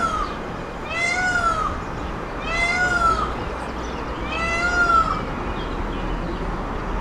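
A cat meowing: three drawn-out meows, each rising then falling in pitch, spaced a little under two seconds apart.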